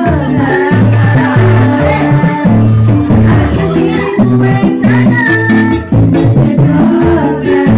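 Korg Pa600 arranger keyboard playing live accompaniment with a steady drum beat, bass and shaker-like percussion, a woman's voice singing over it.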